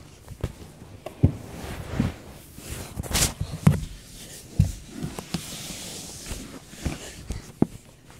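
Irregular soft thumps and scuffs, with a brief rustle about three seconds in, from someone moving about in the dark.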